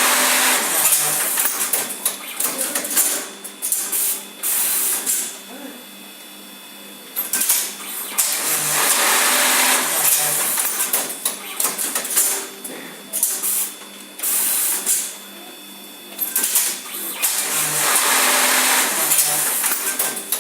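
Automatic back-pocket sewing machine running its stitching cycles: three loud stretches of fast machine stitching, each several seconds long, with quieter pauses between them.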